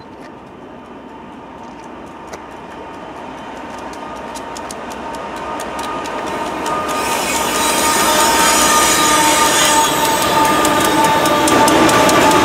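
Freight train hauled by CN and UP diesel locomotives approaching and passing, growing steadily louder and peaking about eight seconds in. Rapid clicks come from the wheels over the rail joints, along with a steady high squeal from the wheels. Tank cars are rolling by near the end.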